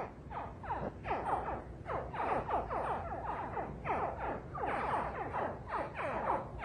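Synthesizer music made of quick, repeated downward-sliding notes.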